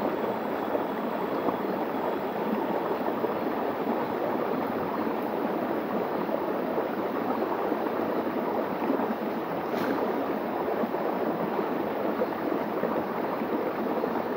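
Shallow stream running over rock slabs, a small cascade splashing in a steady rush.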